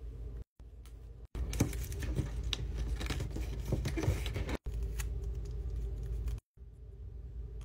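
Paper being handled: a short stretch of scissors cutting a sheet of white paper, then a paper strip being folded and creased by hand, with rustling and a dense run of small crackles and clicks. The sound drops out abruptly a few times.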